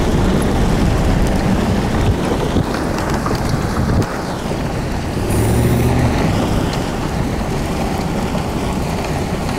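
Wind buffeting the microphone: a steady, loud rumble with no distinct events. The texture changes abruptly about four seconds in, at a cut to another shot.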